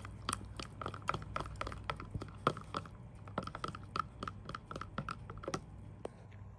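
Metal spoon clicking against the sides of a small plastic cup while stirring gelatin into water, about three to four quick clicks a second. The clicks stop about five and a half seconds in.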